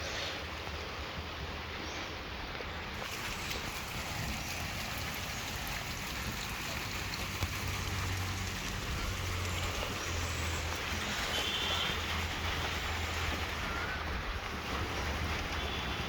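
Steady rain falling, an even hiss with a low hum underneath that grows stronger through the middle.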